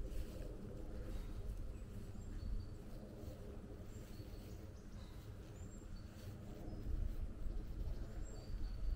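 Birds calling at dawn in the countryside: scattered short, high chirps, a few at a time, over a steady low rumble.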